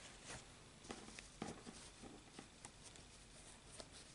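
Near silence with a few faint, scattered clicks and rustles: hands handling a crocheted yarn piece.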